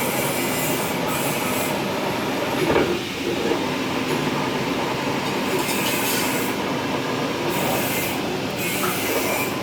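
Lathe running and machining, a steady grinding, rubbing mechanical noise with a brief louder moment about three seconds in.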